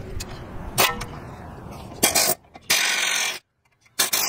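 Pneumatic wrench running in short bursts as it drives in the brake caliper bolts: a brief burst about two seconds in, a longer one of under a second just after, and another near the end, with a few metal clicks of tools before them.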